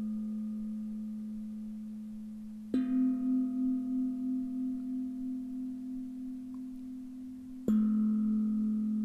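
Singing bowl ringing with a low, slowly wavering hum, struck again about three seconds in and once more near the end; each stroke starts sharply and fades slowly.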